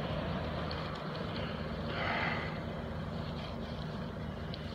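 Steady low engine hum from a distant motor vehicle, with a brief swell of hiss about two seconds in.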